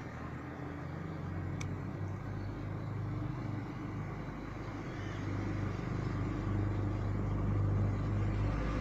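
A low, steady motor hum, like an engine running, that slowly grows louder; one faint click about a second and a half in.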